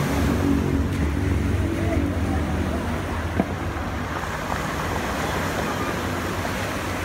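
Surf breaking and washing up over a beach of rounded cobbles, a continuous wash that is a little louder in the first few seconds. A single short click about three and a half seconds in.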